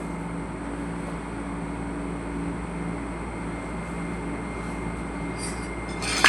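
Steady low mechanical hum from a running machine, with a sharp clink or knock near the end.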